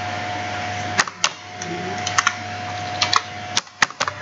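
Computer keyboard typing: about nine scattered key clicks, several in quick pairs, over a steady electrical hum.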